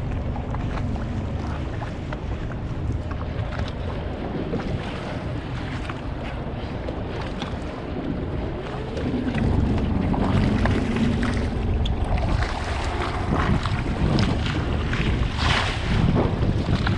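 Underwater rush of water around a swimmer's camera, with wild spinner dolphins clicking and chattering throughout; it grows louder about halfway through.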